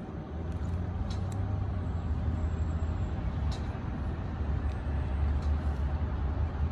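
Steady low rumble of a motor vehicle engine running close by, with a few faint light clicks over it.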